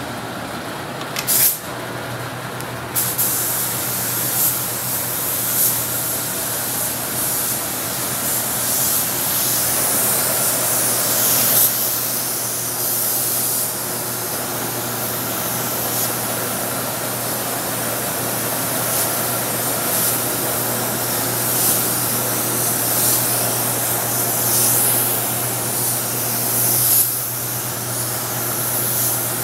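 Gravity-feed air spray gun hissing as it sprays black primer. A short burst comes about a second in, then long spray passes that swell and ease, over a steady low hum.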